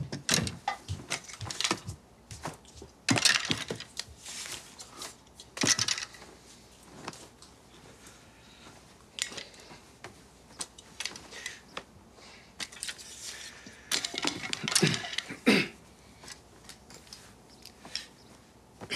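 Clothes and small belongings being handled and packed into a suitcase: irregular bursts of fabric rustling with small clinks and knocks, loudest a few seconds in and again about three-quarters through.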